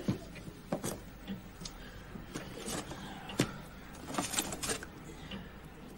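Clothes and small objects being handled and packed into a small suitcase: scattered soft knocks, clicks and rustles, the sharpest about three and a half seconds in and a quick cluster a little after four seconds.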